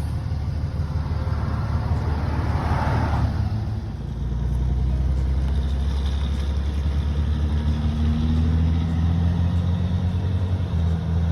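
Vehicle engine pulling a heavily loaded trailer away, a steady low rumble that grows louder and steadier about four seconds in.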